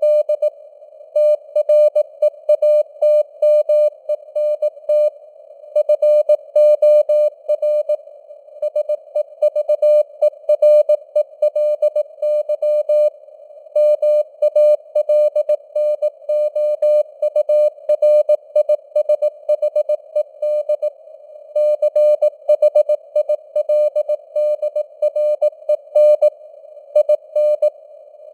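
Morse code (CW) sent at 18 words per minute as a keyed tone of about 600 Hz, in a steady stream of dots and dashes. It sits over a narrow band of simulated receiver hiss, and the signal strength rises and falls as it fades (QSB).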